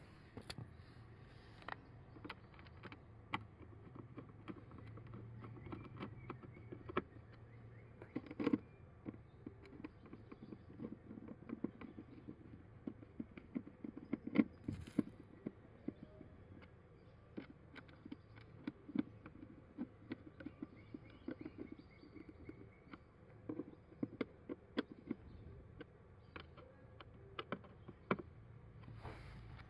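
Small screwdriver turning the screws of a plastic cabin air filter cover, with many small irregular clicks and scrapes.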